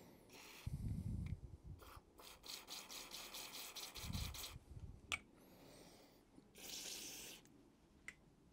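Aerosol carburetor cleaner sprayed in short hissing bursts through a thin red nozzle straw onto small carburetor parts. Dull knocks of the parts being handled on a plastic parts tray come in between.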